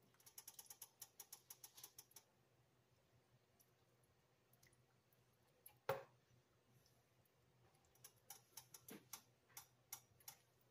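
Faint, quick clicks and taps of a spatula against a nonstick skillet as Swiss chard in stock is stirred: a run of clicks over the first two seconds, one louder knock about six seconds in, and more clicks near the end.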